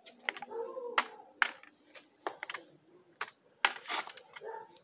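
Sheet-metal gate and its fastening being handled to open it: irregular sharp metallic clicks and knocks, the loudest about a second in, half a second later, and near the end.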